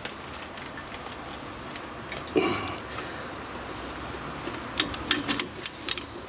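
Hand tools on a car's front brake caliper bracket: one metallic clink about two and a half seconds in, then a quick run of sharp metal clicks near the end as a ratchet with a square-drive bit is fitted to the next bracket bolt.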